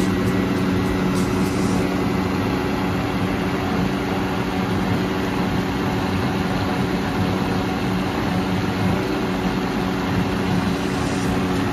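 Vitamix Total Nutrition Center 3 countertop blender running steadily, its motor spinning the blade through a milk and ice-cream shake with an even hum and whirr.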